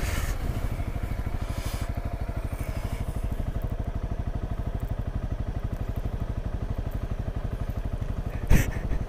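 Honda CRF250L's single-cylinder four-stroke engine idling steadily, an even, fast putter of firing pulses. A short, louder burst of noise comes near the end.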